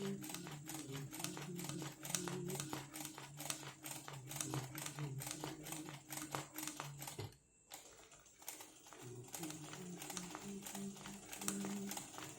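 Sewing machine stitching free-motion embroidery: a rapid, even clatter of needle strokes. It stops for a moment about seven seconds in, then starts stitching again.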